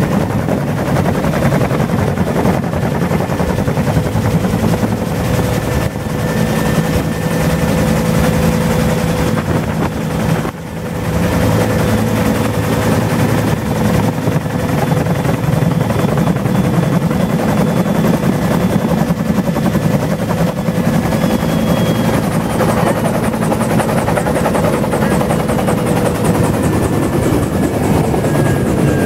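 Bell UH-1 'Huey' helicopter running, heard from inside the open cabin: the fast, rhythmic beat of the main rotor blades over a steady turbine whine.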